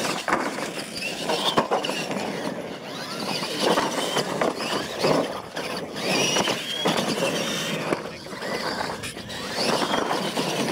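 Electric RC monster trucks racing on a dirt track: high motor whine that rises and falls with the throttle over the noise of tyres churning dirt, with several sharp knocks as the trucks hit and land off the jumps.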